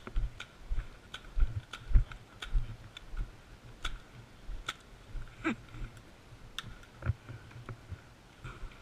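Airsoft guns firing single shots: sharp clicks scattered irregularly, roughly a second apart, over frequent low thumps.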